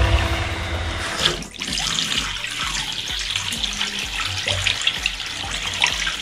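The flushing-station pump hums steadily for about the first second. Then, after a break, foamy descaling solution runs from a hose into a bathtub drain, splashing and gurgling like a running tap.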